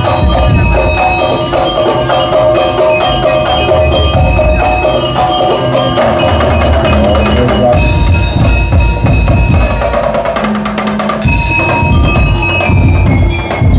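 Madurese daul percussion ensemble playing loud, dense drumming under a melody line, with a stretch of rapid rolling strokes from about eight to eleven seconds in.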